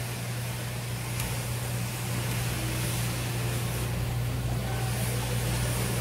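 A steady low machine hum with an even hiss over it, holding constant throughout.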